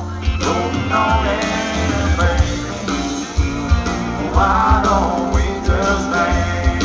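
Live country band playing a song with a male lead vocal, heard from within the audience: a sung melody over guitar, drum hits and a heavy, booming bass.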